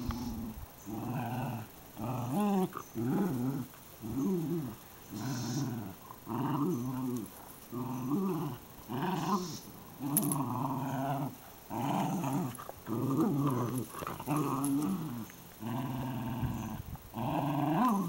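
Dogs growling in play while tugging a toy between them in a game of tug of war: short, rumbling growls that come in repeated bursts, about one a second, some rising and falling in pitch.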